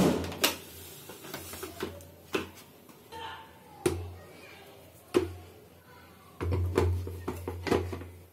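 Plastic mixer-grinder jar and base knocking and clicking several times as the jar is handled and fitted onto the motor base, over background music.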